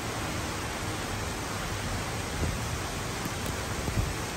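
Heavy rain falling, a steady hiss.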